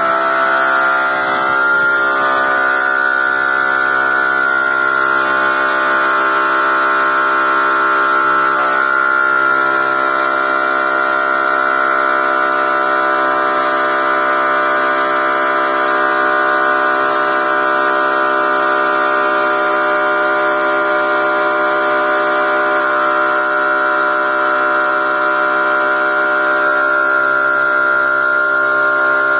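Loud, steady machine whine made of many steady tones, the strongest high-pitched, running without a break or change in pitch.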